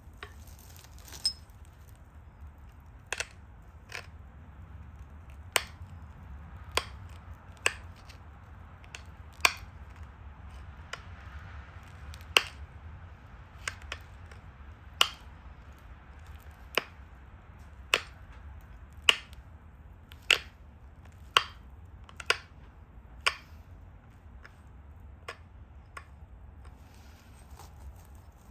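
Pressure flaking of a stone Dalton point: sharp clicks as flakes snap off the edge, about one a second at an uneven pace, stopping near the end, over a faint steady low hum.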